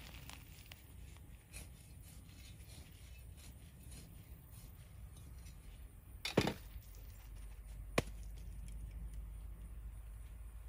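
A few faint clicks, a louder knock about six seconds in, and a single sharp click about two seconds later, over a quiet background that gains a low steady rumble after the knock.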